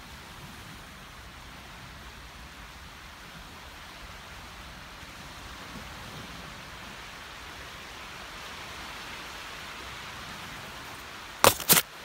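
Steady, even outdoor hiss with nothing distinct in it, then two or three sharp knocks in quick succession near the end, from the handheld phone being bumped or handled.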